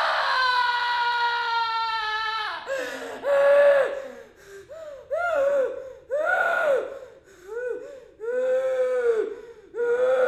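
A woman wailing and sobbing: a long cry that falls steadily in pitch ends about two and a half seconds in, then breaks into a string of short, halting sobs, each rising and falling in pitch.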